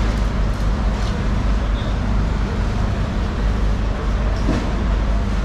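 Steady low rumble of running machinery, like a large engine idling, under a constant wash of background noise.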